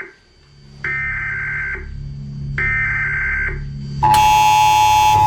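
Emergency Alert System broadcast: three short bursts of buzzing data tones, each about a second long, then about four seconds in the loud, harsh, steady attention tone begins, over a low steady hum.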